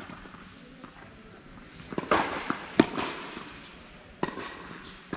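Tennis ball struck by rackets and bouncing during a rally on an indoor court: about five sharp, echoing pops. The loudest comes a little before the middle.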